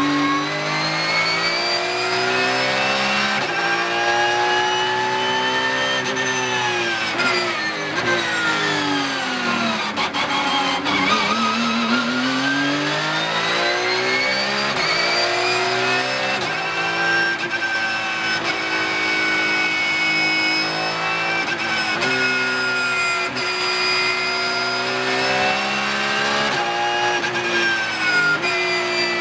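Porsche 911 (992) GT3 Cup race car's 4.0-litre flat-six, heard from inside the cockpit at racing speed. The engine note climbs for several seconds, falls steeply as the car slows for a corner, then climbs again and holds high, dropping back sharply near the end.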